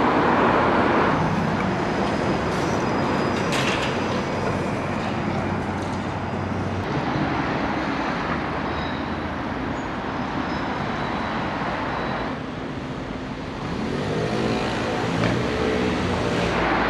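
City street traffic: a steady noise of passing cars and buses. Near the end an engine rises and falls in pitch as a vehicle drives through.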